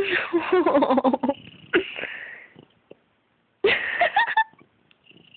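A cat with hiccups making three sudden bursts of spasmodic, wavering sound: a long one right at the start, a shorter one trailing off about two seconds in, and a third near four seconds.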